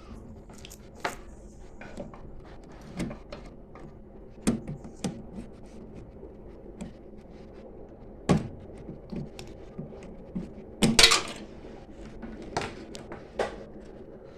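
Scattered small clicks and light knocks of handling parts as a blown fuse is worked out of its holder inside a microwave oven, with a sharp click about eight seconds in and the loudest clatter about eleven seconds in.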